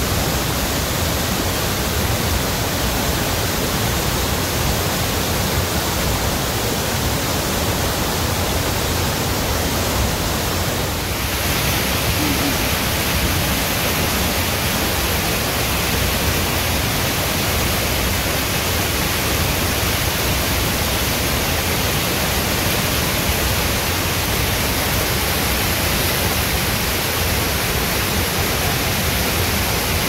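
Waterfall and the rocky stream below it rushing: a steady, dense hiss that turns brighter about eleven seconds in.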